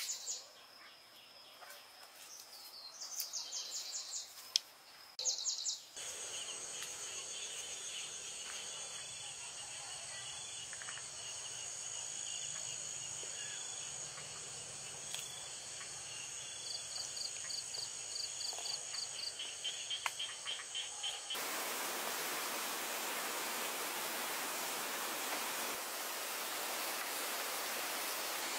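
Birds chirping in short trills for the first few seconds, then a steady chorus of night crickets and insects chirring. From about 21 seconds in, the even rush of a small waterfall takes over.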